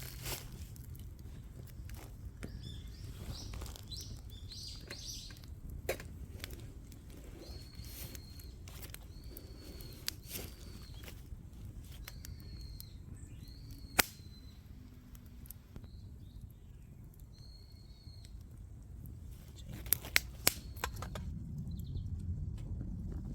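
A bird calling over and over in short, same-pitched high chirps, with a livelier flurry of calls early on, over a low outdoor rumble. Sharp knocks or clicks break in now and then: a single one about halfway and three in quick succession near the end.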